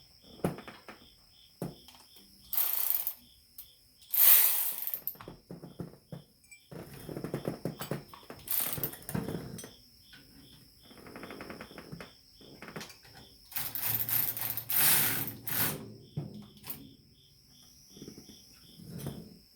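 Metal hand tools and sockets clinking and rattling in several short bursts while a socket is swapped to refit an alternator. Behind them an insect, likely a cricket, chirps steadily in an even rhythm.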